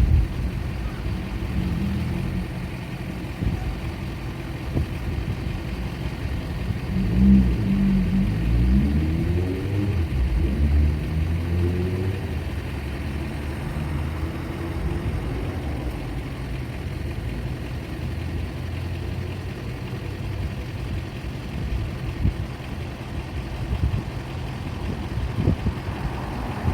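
Road traffic: motor vehicles passing with steady engine and tyre rumble. About seven seconds in, one vehicle accelerates, its engine pitch climbing twice.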